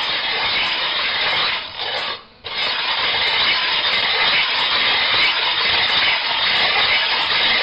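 Sharpening stone being scraped back and forth across a ceramic tile to flatten its face, a continuous gritty scraping that breaks off briefly about two seconds in and then resumes.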